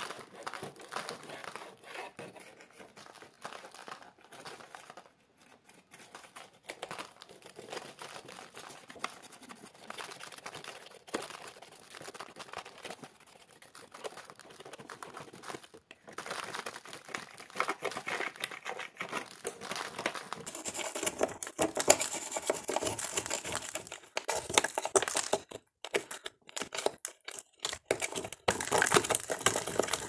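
Thin metal blade scraping and prying a thick crust of dried, cracked mud off an old vacuum cleaner's casing, with dense crackling and crunching as flakes break and come away. It gets louder and busier about halfway through, with a few short pauses.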